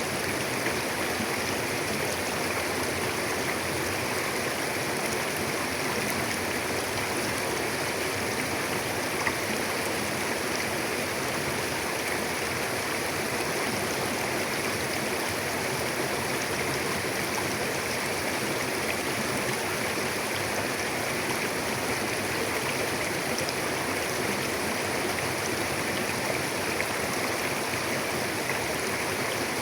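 Mountain river flowing: a steady, even rush of water over rocks, with faint splashes and gurgles.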